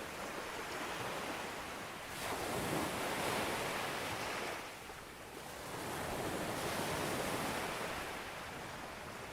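Sea waves breaking on a beach: the surf swells up as a wave breaks about two seconds in, eases off, then builds again with another wave about six seconds in.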